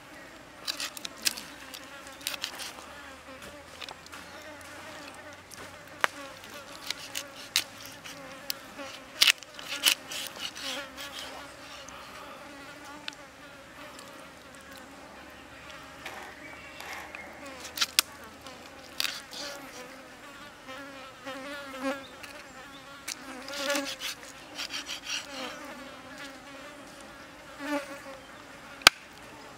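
A kitchen knife cuts raw frog meat on a wooden chopping block, making irregular sharp knocks as the blade hits the wood. Insects buzz steadily underneath.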